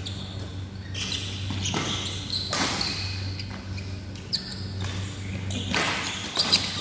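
Badminton rally: sharp racket strikes on the shuttlecock, the clearest about four and a half and six and a half seconds in, with shoes scuffing on the court, over a steady low hum in a large hall.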